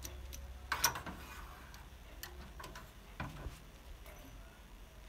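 Torque wrench on cylinder head bolts clicking as a bolt is pulled up to its final 75 Nm tightening. A few sharp, irregular metallic clicks, the loudest a double click about a second in.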